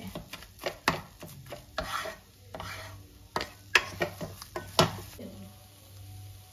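Wooden spatula scraping and clacking against a wok as it stirs thick, nearly finished grated-carrot halwa. The scrapes and knocks come irregularly and die away about five seconds in.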